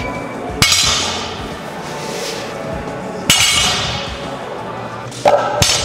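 Loaded barbell set down on the floor twice, each touchdown a sharp clank of plates and bar that rings briefly. A quick cluster of lighter knocks follows near the end.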